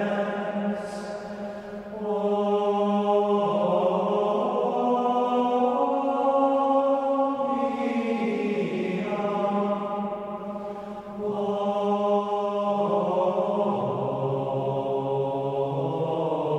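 Background music of slow, sustained chant-like choral voices holding long chords that shift every few seconds, with two brief lulls, about two seconds in and about ten seconds in.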